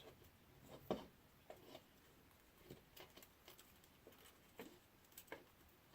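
Faint, scattered small clicks and taps from a small tool and fingers working plastic and metal parts of a DJI Phantom 3 Pro gimbal while a ribbon cable connector is pried out. The sharpest tap comes about a second in.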